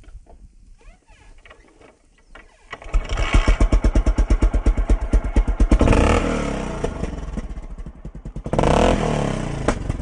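KTM 250 SX-F four-stroke dirt-bike engine, fitted with an Akrapovič exhaust, starts about three seconds in and is blipped hard several times. It settles toward idle, is revved once more near the end, then eases off again.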